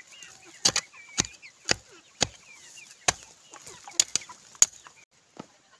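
Hoe blade chopping into dry, stony soil: about nine sharp strikes at uneven half-second intervals, stopping about five seconds in. Chickens cluck in the background.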